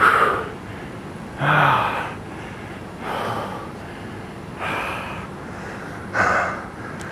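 A man breathing hard while exercising: five short, forceful exhales about a second and a half apart, one of them with a brief grunt.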